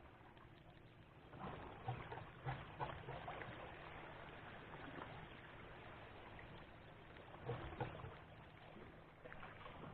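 Faint sea-water noise with a few soft knocks and handling sounds, clustered about a second and a half in and again near eight seconds.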